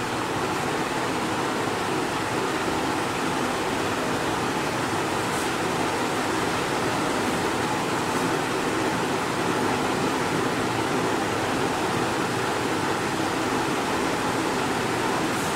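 Steady, even background noise like a running fan, with no speech.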